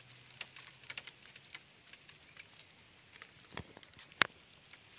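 Dry bamboo leaves crackling and rustling under hands working through leaf litter, a run of small irregular clicks with one sharp click just past four seconds.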